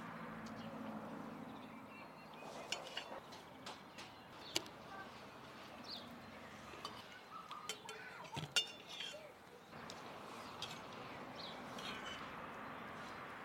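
Spoons and cutlery clinking lightly against bowls and plates as people eat, a scatter of short clinks with the loudest a little past halfway.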